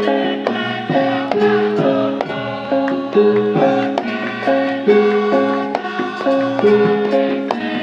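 Javanese gamelan music: struck bronze metallophones ring out a steady, repeating melody of held notes, with drum strokes.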